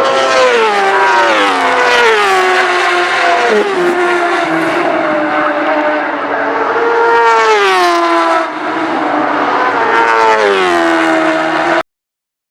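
Superbike racing motorcycles at high revs going by, their engine pitch sweeping down several times as the bikes pass and change gear; the sound cuts off suddenly near the end.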